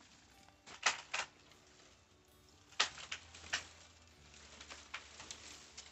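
A few sharp cracks and snaps of dry wood and brush, loudest about a second in and again near three seconds in, with quieter crackling between.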